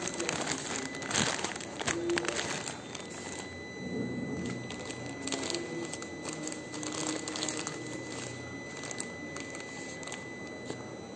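Plastic courier mailer bag crinkling and tearing as hands pull it open. The crackling is densest in the first three seconds, then settles into quieter rustling.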